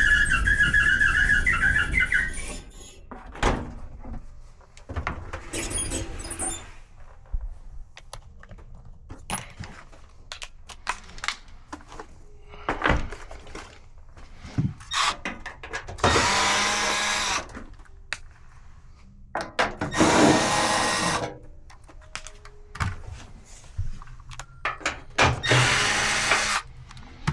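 A worn dryer idler pulley screeching steadily for about two seconds before the dryer stops. Then scattered knocks and clicks of work on the cabinet, and a power drill running in three short bursts of about a second and a half each.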